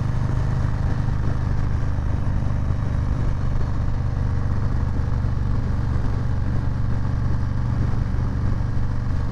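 Harley-Davidson Low Rider S's Milwaukee-Eight 114 V-twin engine running steadily, with an even low engine note that neither rises nor falls.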